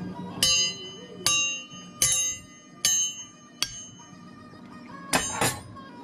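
A run of sharp, ringing clinks, about one a second, like a metal utensil tapping against a serving dish, ending in a double clatter near the end.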